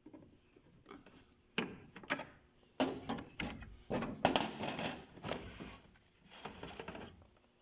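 Hard plastic parts of a Sharp AR-5520 photocopier clicking, knocking and rattling as they are handled and taken apart, with the busiest rattling about halfway through.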